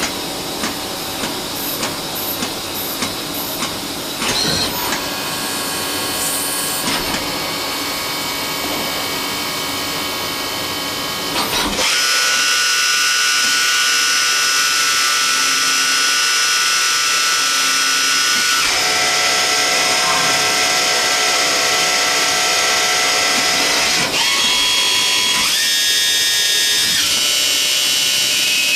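Nomura NN-20JR Swiss-type CNC automatic lathe machining a part, with cutting noise and scattered clicks. About twelve seconds in it gets louder, with a steady high whine from the spindle and tooling that jumps to new pitches several times as the speeds change.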